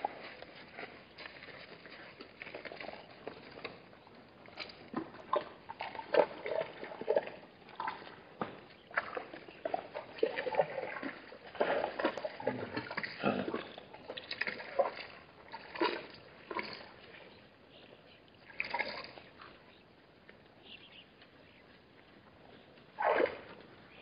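A herd of wildebeest drinking and moving about at a shallow waterhole: irregular sloshing and splashing of water, with a louder burst near the end.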